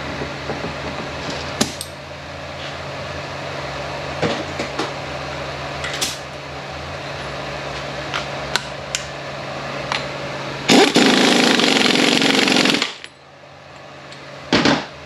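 Impact wrench hammering for about two seconds near the end, running down the self-locking nut on the transfer case, and cutting off sharply. Before it come scattered clicks and clanks of tools and parts over a steady shop hum.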